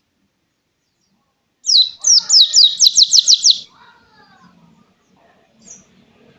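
Pleci (white-eye) singing a fast run of about eight high, clear notes, each sliding downward, beginning about a second and a half in and lasting about two seconds.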